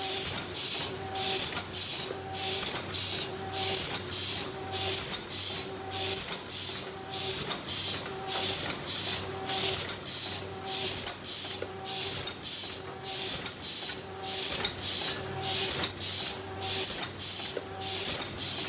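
Paper bowl making machine running at production speed, cycling a little less than once a second, one bowl per cycle. Each cycle is a loud burst of hissing with a short hum in it, then a quieter stretch.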